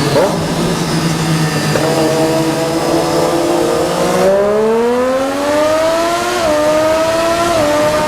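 Triumph Daytona 675R's three-cylinder engine under way with wind rush. Its note climbs steadily as the bike accelerates, then drops sharply twice near the end as it shifts up through the gears.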